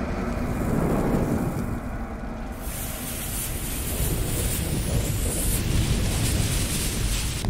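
Intro sound effects of a lit fuse and fire: a steady hiss over a low rumble, the hiss growing brighter for a few seconds in the middle as the fire flares up.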